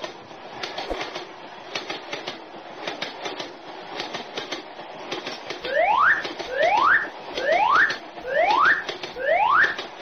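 Cartoon train sound effect: a rhythmic clickety-clack of a train running on rails. About six seconds in, five quick rising whistle-like glides come one after another, about one a second.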